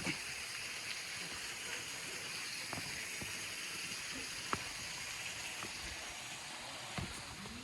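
Steady rushing of running water from a creek and waterfall, heard as an even hiss, with a few short sharp clicks.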